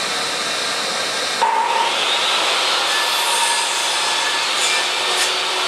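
Electric table saw running steadily while a long board is fed through it lengthwise, a rip cut.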